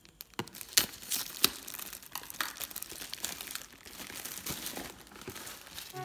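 Clear plastic packaging bag crinkling and crackling as hands work it off a stack of plastic food containers, with a run of sharp crackles, the loudest a little under a second and about a second and a half in.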